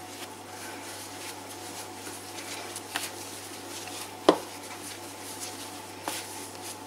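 Hands kneading soft dough on a floured wooden table: quiet pressing and rubbing, with a few soft knocks of the dough on the board, the sharpest about four seconds in.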